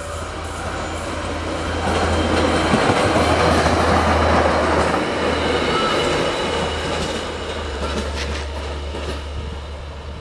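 Self-propelled track recording railcar (KUJR) passing by: its diesel engine hum and wheel-on-rail rumble swell to their loudest a few seconds in, then fade as it runs away down the track.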